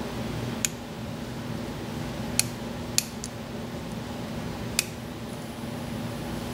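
Sharp metallic clicks of a lock pick working the pin stack of an American padlock, about five at irregular intervals, over a steady low hum.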